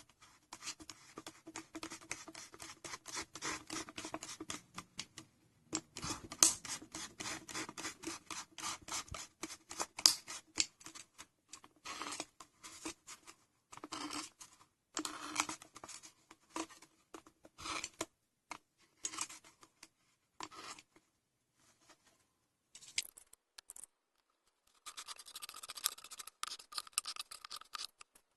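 Hands working craft materials: runs of short, scratchy strokes in uneven bursts, with brief pauses between runs.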